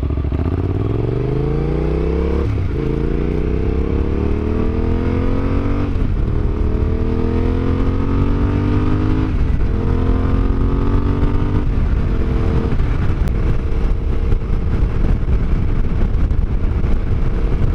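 Yamaha Ténéré 700's parallel-twin engine pulling away and accelerating, its pitch climbing in each gear and dropping at about four upshifts, then running at a steady cruising pitch for the last few seconds.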